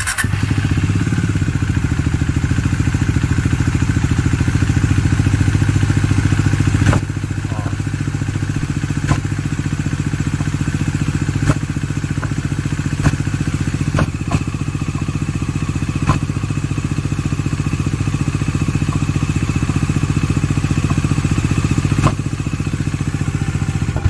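Bajaj Dominar 400's single-cylinder engine started and idling, with a sharp knock at irregular intervals, about seven times. The knock is the unexplained engine noise on a bike with under 1000 km; oil pressure has been confirmed.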